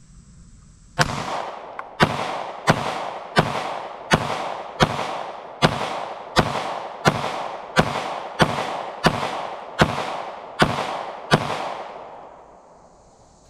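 SIG P365 XMacro TacOps 9mm pistol fired in rapid succession: fifteen shots about 0.7 s apart, starting about a second in, each followed by a short ringing echo, emptying the magazine.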